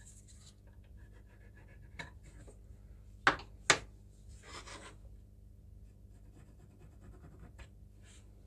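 Marking tools scratching lightly on a wooden broom-handle blank, with two sharp knocks close together about three seconds in, the loudest sounds.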